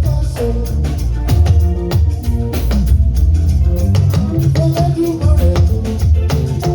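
Live band playing: a heavy, steady bass line under dense hand percussion and shakers, with melodic guitar or keyboard lines moving above.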